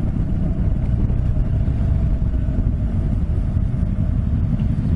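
Honda NC750X motorcycle cruising at a steady speed: a dense low wind and road rush on the microphone with a faint steady engine hum, no changes in speed.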